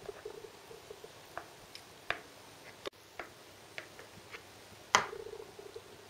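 Light, scattered clicks and taps of a knife scoring shortbread dough in a metal baking tin, with one louder tap about five seconds in.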